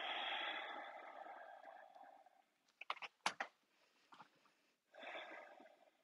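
A person breathing audibly while folding forward: a long, faint exhale that trails off over a couple of seconds, then a few sharp clicks about three seconds in, then another breath near the end.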